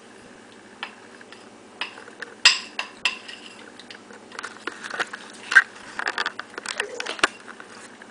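A spoon scraping and clinking against a pan while spreading icing over a brownie: scattered sharp clinks, the loudest about two and a half seconds in and again past the middle, then a quicker run of scrapes and clicks.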